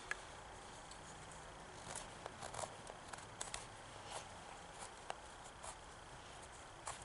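Knife whittling a wooden spoon blank: faint, irregular scraping strokes and small clicks as shavings come off the wood, most of them in the middle stretch.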